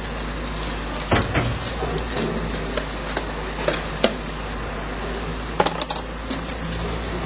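Mixed household rubbish being sorted by hand: scattered knocks, clatters and rustles as items and plastic bags are handled and dropped into bins. Underneath is a steady low rumble of wind on the microphone.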